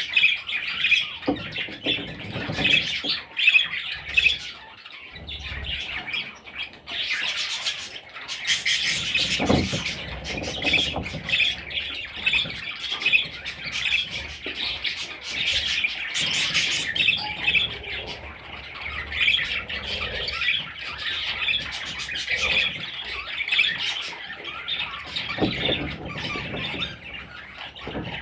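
Baby budgerigars chirping and squawking nonstop, a dense chatter of short, quick calls, with a few louder harsh squawks along the way.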